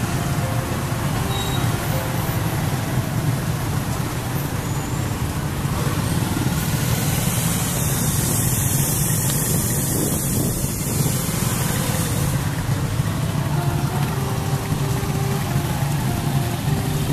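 Motorcycle tricycles (motorcycles with sidecars) running slowly in a procession, a steady low engine drone with road hiss.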